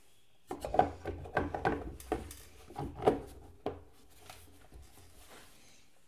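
Plastic air cleaner cover being pushed down into place over the air filter of a small Honda-clone engine: a quick run of plastic knocks and rubbing scrapes lasting about three seconds.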